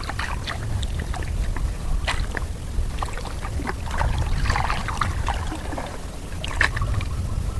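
Water lapping and light splashing with scattered small ticks, over a steady low wind rumble on the microphone.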